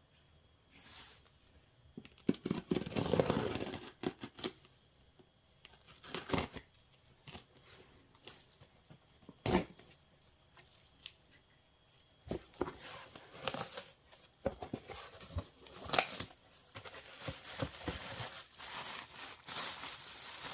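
Parcel packaging being opened by hand: irregular tearing, cutting and rustling of the wrapping, with a few sharp clicks.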